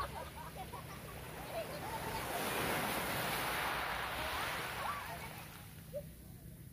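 Small waves washing up onto a sandy beach, a soft rush that swells about two seconds in and fades away near the end. Faint distant voices are heard now and then.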